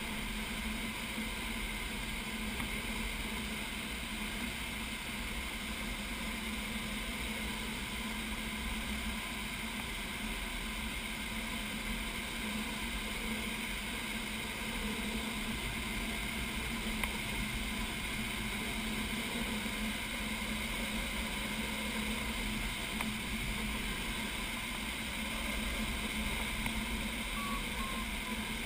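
Steady rush of air over a glider's canopy in flight, heard from inside the cockpit, with a steady low hum underneath.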